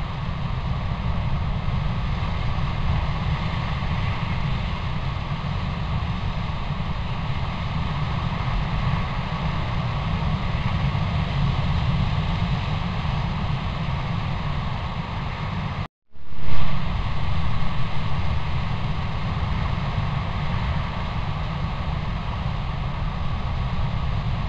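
Steady hiss and low rumble of a trail camera's own microphone noise. About sixteen seconds in it cuts out completely for a moment where two camera clips join, then comes back with a sudden loud sound.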